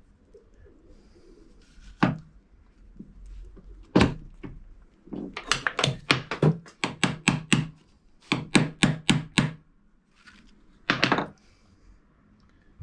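A hammer tapping a bearing and shaft home into a steel chain idler sprocket: two single knocks, then two quick runs of light blows at about four a second, and a heavier thud near the end.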